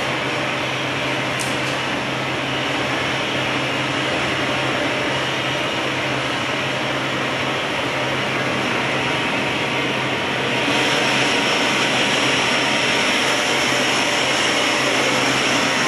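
Steady roar of a glassblowing studio's gas-fired glory hole burner and blowers, over a constant low hum. The roar grows louder and hissier about two-thirds of the way through.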